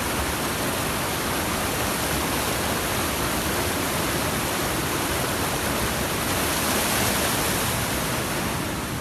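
Steady rushing of fast-flowing floodwater from a swollen mountain river, a little louder near the end.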